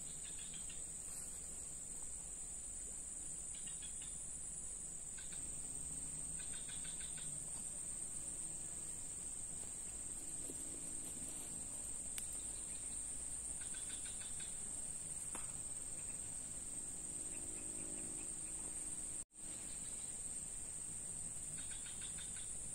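Steady high-pitched drone of insects in the surrounding vegetation, with short pulsed trills repeating every few seconds over it. The sound cuts out for a split second about nineteen seconds in.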